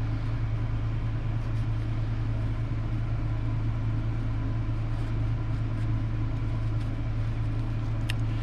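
A steady low mechanical hum, even in level throughout, with one faint click about eight seconds in.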